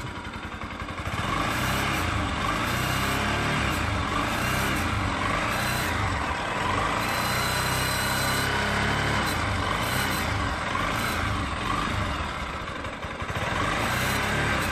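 Bajaj Pulsar 200NS single-cylinder engine running, with the faint rattle the owner puts down to loose screws, which he places around the carburettor area. The engine sound rises about a second in and dips briefly near the end.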